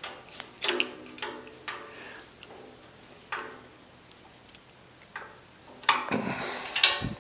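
Screws being driven by hand with a screwdriver into a steel cart shelf: scattered metallic clicks and scrapes, then a louder metal clatter about six seconds in.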